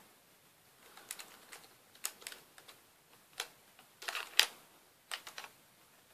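Scattered light clicks and taps as a laptop RAM module is handled and pushed into its slot in a MacBook's memory bay. The sharpest click comes about four and a half seconds in.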